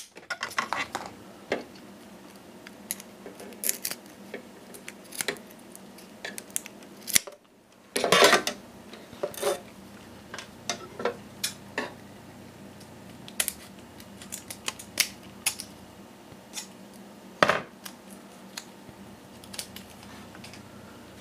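Scissors snipping a strip of hook-and-loop (Velcro) tape, heard as scattered short cuts and clicks at irregular intervals, with a few louder snips.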